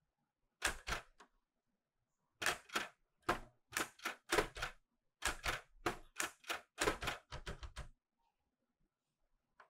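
Keys of a Clover 810S typewriter being typed, each typebar striking the paper with a sharp clack. A few strokes come about a second in, then an uneven run of roughly three a second from about two and a half seconds in, which stops near eight seconds.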